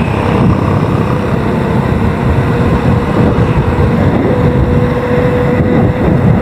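Wind rumbling and buffeting on a handlebar-mounted camera's microphone while a bicycle rides at speed along a paved road, with a faint steady hum underneath.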